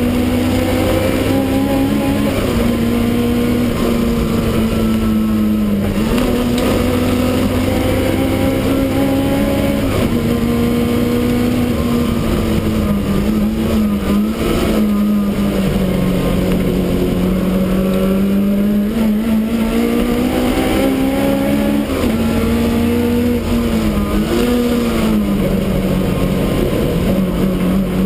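Supercharged BMW E30 race car engine running hard, heard from inside the stripped cabin. Its pitch climbs and drops again and again as the gears are changed through the corners.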